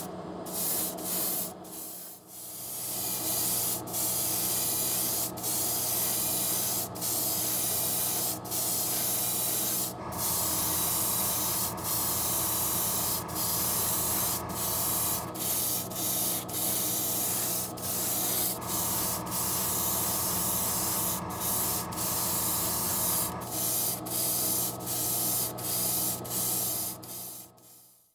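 Airbrush spraying paint onto a small plastic model part: a steady hiss of air and paint, broken by brief pauses every second or so as the trigger is let off and pressed again. A low steady hum runs underneath, and the hiss cuts off suddenly near the end.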